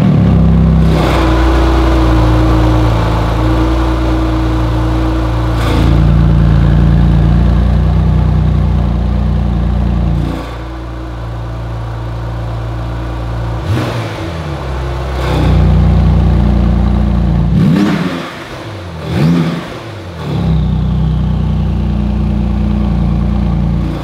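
Porsche 911 GT2 RS's 3.8-litre twin-turbo flat-six idling through its valve-controlled titanium exhaust. The level steps up and down several times as the exhaust valves are switched open and closed. There is a short blip part-way through, and two quick revs that rise and fall about three-quarters of the way in.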